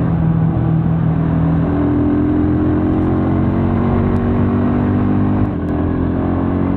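Rusi Sigma 250 motorcycle engine running steadily while riding, with wind and road noise rushing over an action camera's external microphone. The engine note eases off slightly about five and a half seconds in.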